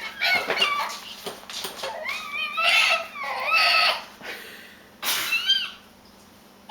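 Baby squealing and babbling in a run of high, gliding cries that bend up and down in pitch, with a quieter stretch near the end.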